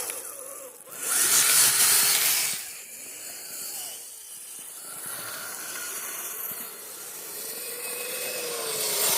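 Kyosho Blizzard RC snowcat's plastic tracks scraping and hissing through snow as it tries to drift, loudest in a burst about a second in. Its electric motors whine faintly, rising and falling in pitch.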